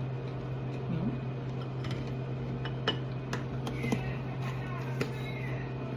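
A table knife clicking and tapping against a jar and plate a few times as sunflower butter is spread on corn thins, over a steady low hum.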